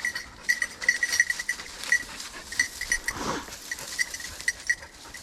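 A bird dog's collar bell jingling in irregular short rings as the dog hunts through the cover, with rustling of brush and leaves underneath.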